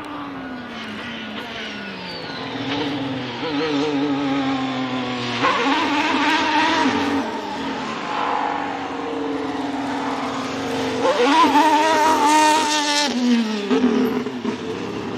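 Ferrari SF-23 Formula 1 car's turbocharged V6 engine: the pitch falls as it slows, then it accelerates hard, climbing through quick gear changes to its loudest about eleven seconds in before the pitch drops again near the end.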